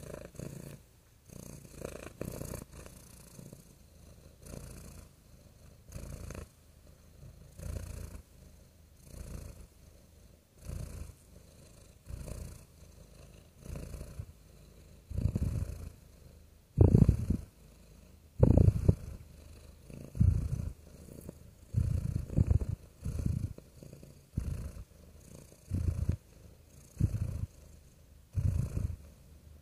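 Domestic cat purring close up, swelling and fading with each breath about every second and a half, louder through the middle stretch.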